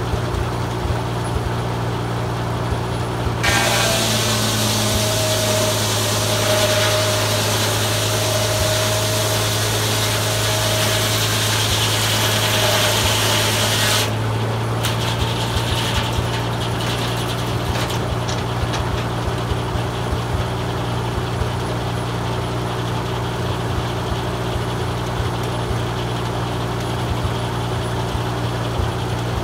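Farmall M tractor's four-cylinder engine running steadily, belted to a Belsaw circular sawmill. About three seconds in the spinning blade goes into a pine log, and the cut runs for about ten seconds as a loud rushing hiss, then stops abruptly. Afterwards the tractor keeps running with light clicks and rattles.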